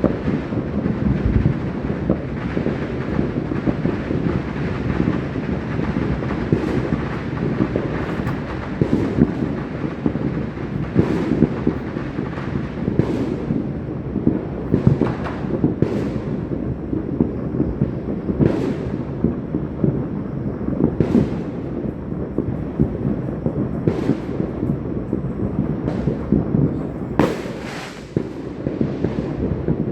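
Many fireworks and firecrackers going off at once: a dense, continuous rumble of booms and crackling, with sharper bangs standing out every second or two.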